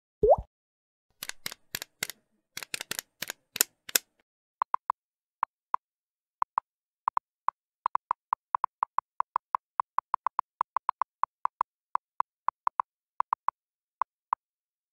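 Editing sound effects for animated on-screen text: a short rising plop, a quick run of sharp clicks, then a long string of short, identical high blips, a few a second and unevenly spaced, one per letter as text types out.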